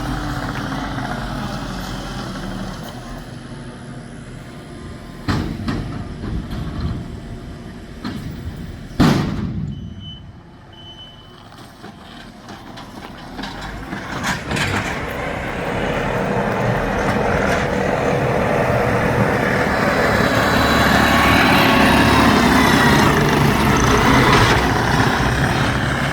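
Skid steer loader's diesel engine running under work, with a few clanks and one loud bang about a third of the way in. It then builds to louder, steady running through the second half.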